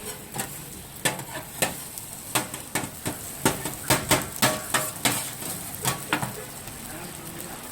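Fried rice being stir-fried on a hot iron pan: a metal utensil clanks and scrapes against the pan about two or three times a second over a steady sizzle. The strikes thin out near the end.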